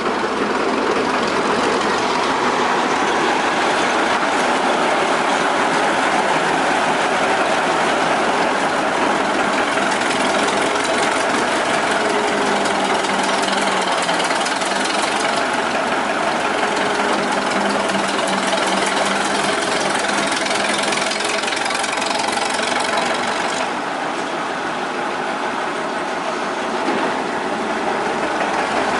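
Large old gasoline engine running steadily, a little quieter for a few seconds near the end.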